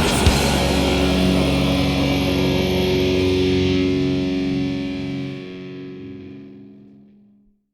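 Black metal band ending a song: the drums stop just after the start and a final distorted electric guitar chord rings on, fading away to silence near the end.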